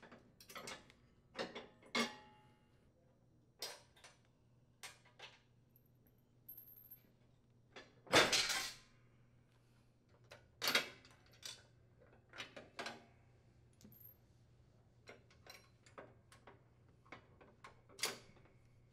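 Light metal clicks and clinks as the retaining pins are pulled and the support arms are unhooked from a Craftsman riding mower's deck, with a louder metallic clatter about eight seconds in.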